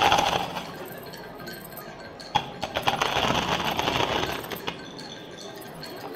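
Small hard pieces clinking and rattling against a stainless steel bowl: a short burst at the start, then a longer, denser rattle from about two and a half seconds in to nearly five.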